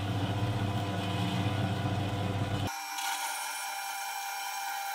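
Horizontal metal-cutting bandsaw running steadily with its blade on a steel flat bar, a deep motor hum under a higher whine. A bit past halfway the deep hum drops out suddenly, leaving the higher whine.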